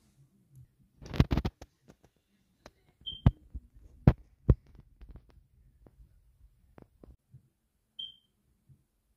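Handling noise from a plastic figure and its cardboard box being moved and set down: a quick cluster of knocks, then a few single sharp knocks and light ticks. Two short high beeps, a few seconds apart.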